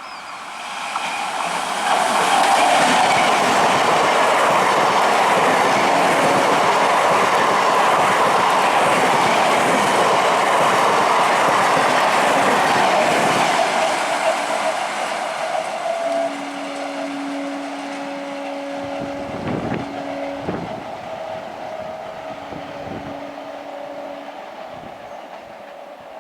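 Indian Railways train passing close, a loud rushing rumble of wheels on rails that builds about two seconds in and dies away after about fourteen seconds. In the second half a steady low tone sounds twice, a few seconds each time, with a couple of sharp knocks in between.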